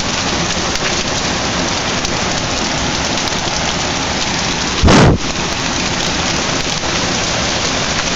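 Golf-ball-sized hail and rain pelting down in a heavy storm: a steady, dense noise of hits, with one loud thump about five seconds in.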